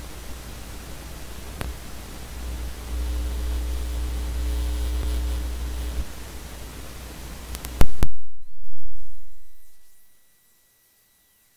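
Steady hiss with a strong low hum from an open recording microphone, with a few faint steady tones in the middle. There is a single click about two seconds in and a cluster of louder clicks near eight seconds, after which the noise cuts off abruptly.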